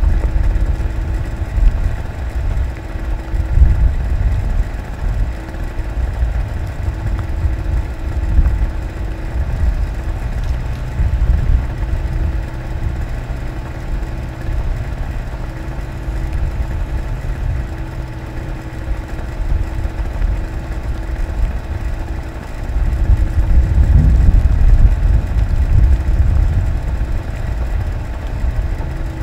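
Compact excavator's diesel engine running under load while its hydraulic arm digs, with a steady whine that cuts in and out. It gets louder for a few seconds a little before the end.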